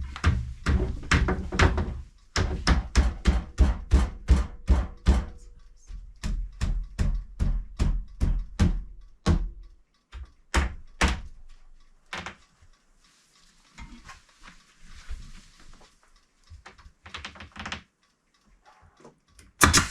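Hammer driving finish nails into wooden trim: three quick runs of steady taps, about four a second, then two harder single blows, followed by quieter scattered knocks and handling noises.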